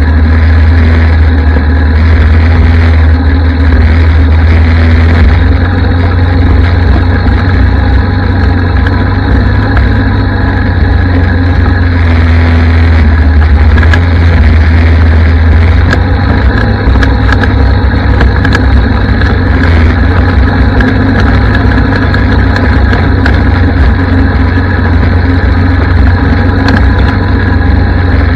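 Yamaha ATV's single-cylinder four-stroke engine running steadily while riding along a trail, loud and deep, its note shifting slightly a couple of times as the throttle changes.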